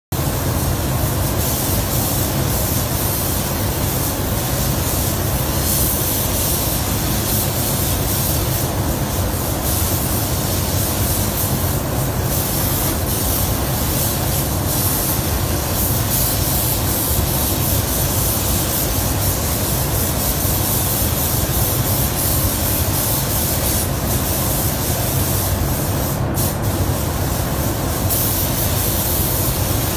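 Paint spray guns hissing steadily as a truck chassis is sprayed, over a steady low drone; the hiss dips briefly a few times.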